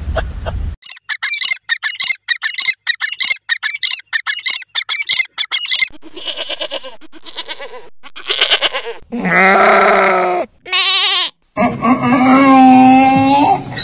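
Goats bleating: several calls, the loudest a long wavering bleat about nine seconds in, with another long call near the end. The first few seconds hold rapid high chirping.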